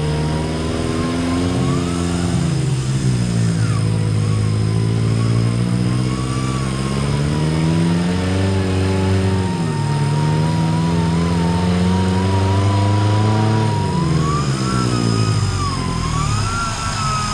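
Off-road 4x4 engine pulling under load on a trail, its revs rising and falling several times as the driver works the throttle, with a thin wavering whine running alongside.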